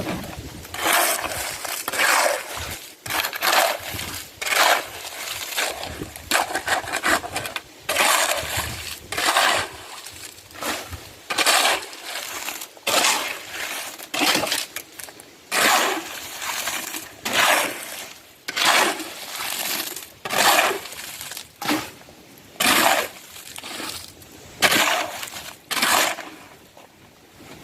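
Repeated gritty scraping and crunching strokes, one every second or two, like loose debris or gravel being worked. They stop shortly before the end.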